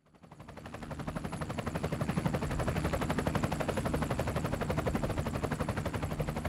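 Helicopter rotor chopping in a fast, even beat over a steady low hum, fading in from silence over the first couple of seconds.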